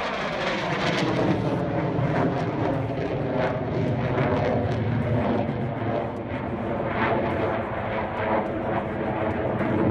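Fighter jet engine roar as the jet flies past, loud and steady, with a falling sweep in tone over the first couple of seconds.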